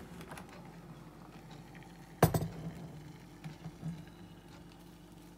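Freshly boiled water poured from an electric kettle into a ceramic mug onto a teabag, with a single sharp clunk of the kettle or crockery a little over two seconds in and a few light clinks after it.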